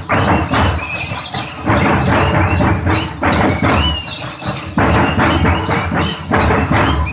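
Traditional drumming for a Gussadi dance, loud and fast, in repeated bursts of about a second and a half. Short high squealing notes cut across the drumming.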